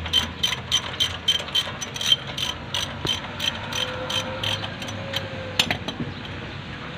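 Ratchet wrench clicking steadily, about three to four clicks a second, as a bolt is turned, stopping about six seconds in.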